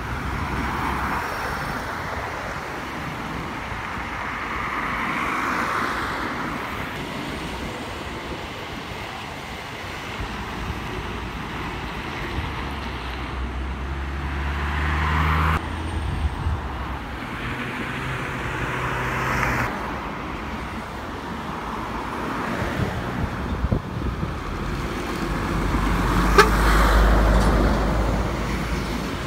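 Road traffic passing one vehicle after another: lorries and cars each swell and fade with tyre noise, under the low hum of heavy diesel engines. It is loudest near the end, as a flatbed lorry comes by.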